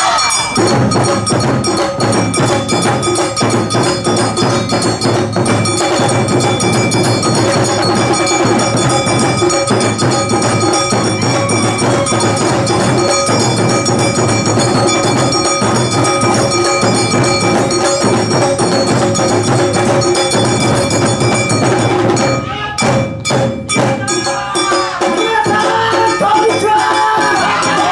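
Awa odori dance music played loud on stage: dense drum and percussion rhythm under steady held tones. About 22 seconds in, the rhythm breaks into a few separate strikes, then a wavering melody line comes in.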